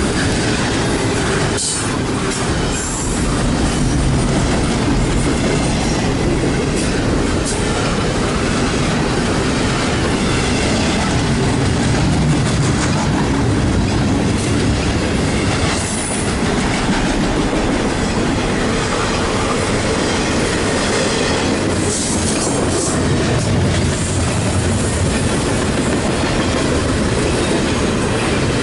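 Norfolk Southern intermodal train's double-stack container well cars rolling past: steady rumble and clatter of steel wheels over the rails, with brief high wheel squeals now and then.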